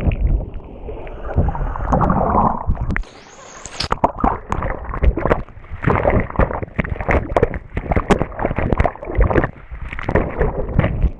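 Water churning as heard underwater, muffled and low, then from about four seconds in a fast, irregular run of knocks and thumps as swimmers kick and splash close around the submerged camera.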